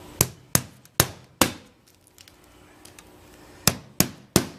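Hammer driving a nail through the top piece of metal flashing on an asphalt-shingled roof section: four quick blows, a pause of about two seconds, then three more.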